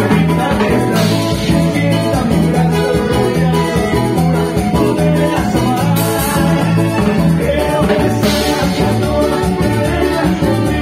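Live cumbia ranchera band playing through a PA, with a steady repeating bass line and drums, and a male vocalist singing into a microphone.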